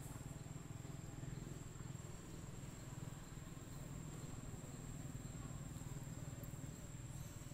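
Outdoor ambience: a steady low rumble under a continuous thin, high-pitched insect whine.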